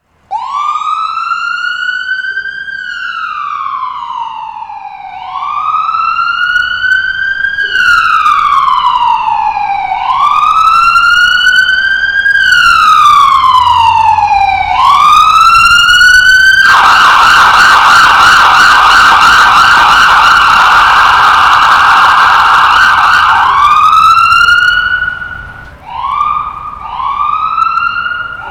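Electronic ambulance siren sounding a slow wail, rising and falling about once every five seconds. Partway through it switches to a rapid yelp for several seconds, then goes back to rising sweeps that quicken near the end.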